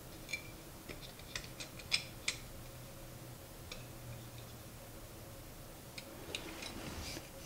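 Small metal clicks and ticks from the blade-adjustment mechanism of a Harbor Freight No 33 bench plane as its knurled knob is turned and the blade set by hand. The clicks come scattered, a cluster in the first couple of seconds and another near the end.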